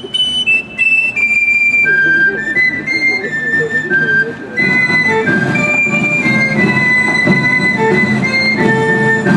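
Provençal folk dance tune for the cordelles ribbon dance, led by a high, flute-like pipe playing a melody of held notes. About four and a half seconds in, a fuller, lower accompaniment joins and the music gets louder.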